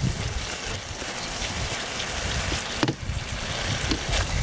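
Tomato and onion sauce sizzling and bubbling in a wok as it cooks down, with one sharp click a little before three seconds in.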